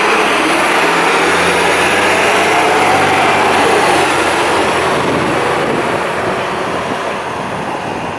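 City street traffic: a large motor vehicle passing close by, its engine and tyre noise loud for the first few seconds, then slowly fading.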